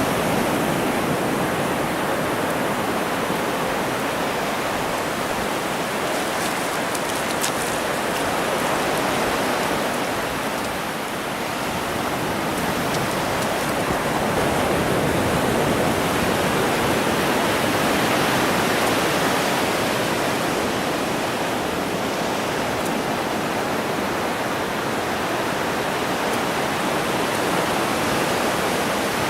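Ocean surf washing on a beach: a steady rushing hiss of breaking waves that eases slightly and then swells again.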